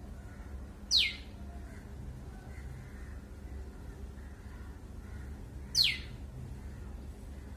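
A small bird giving a short, loud, steeply falling call twice, about five seconds apart, over a steady low hum.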